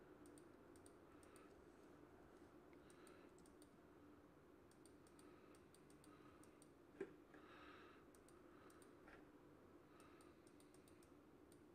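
Near silence: faint clicking of a computer mouse and keyboard over a low steady hum, with one louder knock about seven seconds in.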